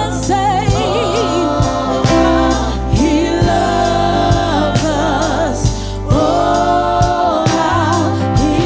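Gospel worship music: singers with vibrato over a band playing sustained bass notes and a steady drum beat.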